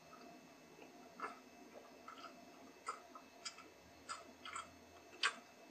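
A person gulping a drink from a plastic cup: about six faint swallowing clicks at uneven intervals, the one near the end the loudest.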